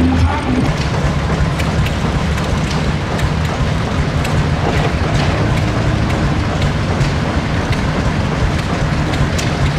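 Vintage tractor engine running steadily as the tractor drives slowly, with a faint irregular clatter over the low engine note.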